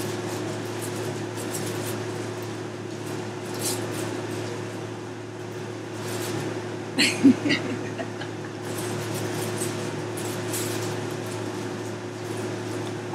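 Steady low room hum, with a few brief soft noises from two small dogs jostling over a chew stick on a blanket; a short cluster of sounds comes about seven seconds in.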